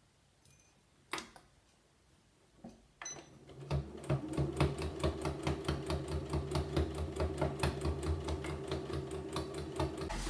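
Janome Memory Craft 9900 computerised sewing machine starting up about three seconds in, then stitching at a steady speed: a fast, even ticking of needle strokes over the motor's hum as it sews down the fabric binding. A click comes shortly before it starts.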